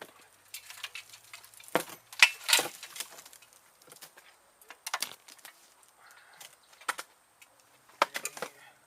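Irregular clatter: a string of short knocks, clicks and scrapes, loudest about two seconds in and again near the end.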